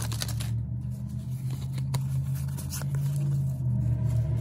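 Foil booster packs and trading cards being handled, with light rustling, scraping and small clicks, over a steady low hum.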